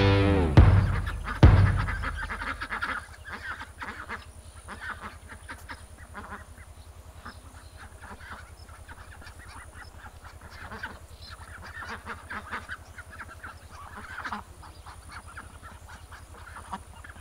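A closing music chord fades out over the first two seconds. Then waterfowl honk and quack in scattered bursts of calls over a steady low hum.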